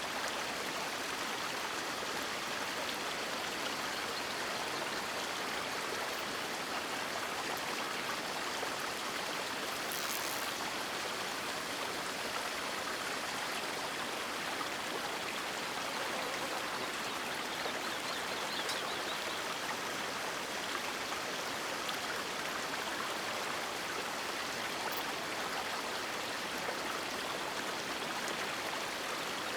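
River water flowing, a steady, even rush that does not let up.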